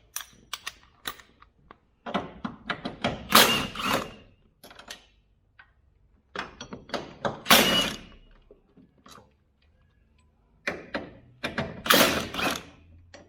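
Ratchet wrench clicking in three bursts of about two seconds each, with scattered metal clicks and knocks between: a bolt being worked loose on a car's engine mount.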